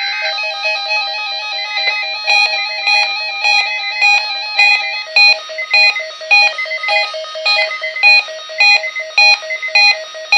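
Electronic music of clean synthesized tones played during the weather radio's monthly test broadcast. It starts with held notes and moves into a rhythmic pattern of short repeated notes, about one every half second, in the second half.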